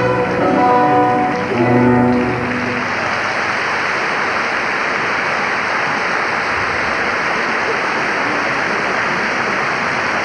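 Skating program music, instrumental with held notes, ends about two seconds in. A large audience's steady applause then fills the rink.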